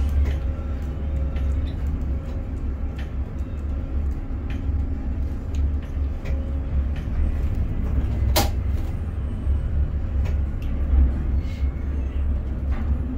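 Container crane machinery heard from the operator's cab: a steady low drone while the spreader holds a container, with scattered light clicks and one sharp click about eight seconds in.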